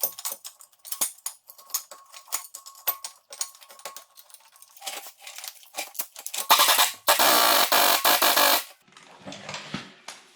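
Metal clinks and taps from hand work on steel parts and a bolted bracket, then a loud rush of noise lasting about two seconds, starting around six and a half seconds in.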